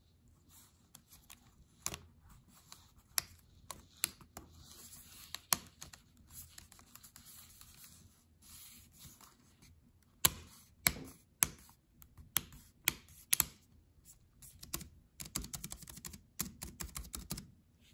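Spacebar of a Microsoft Surface Book 1 keyboard clicking as it is pressed down repeatedly along its length to bring it into place. A few scattered clicks come first, then a handful of louder clicks about ten seconds in, and a quick run of clicks near the end.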